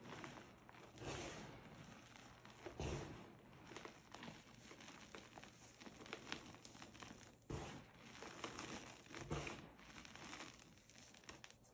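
Soft crumbling and crunching of reformed gym chalk as hands squeeze powdery clumps and let them break apart and fall. It comes as a series of separate squeezes, one every second or two.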